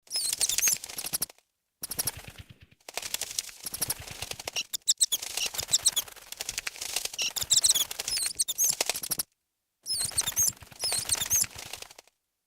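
Bats flying: a rapid flutter of wingbeats with high squeaks that glide up and down. It comes in four bursts separated by short silences, at about 1.5 s, 9.5 s and just before the end.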